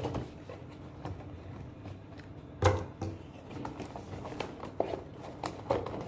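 Packaging being handled: scattered clicks, knocks and rustles of cardboard and plastic, with one louder knock about two and a half seconds in.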